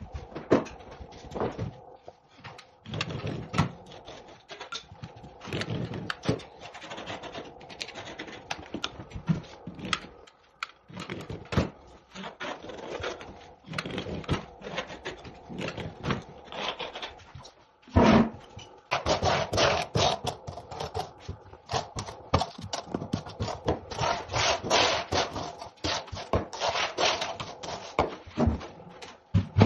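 Hand work on a concrete floor: rubbing and scraping with many sharp clicks and knocks, as fibreglass mesh is laid and fixed and a squeegee moves over the surface. It becomes louder and busier a little over halfway through, starting with a hard knock.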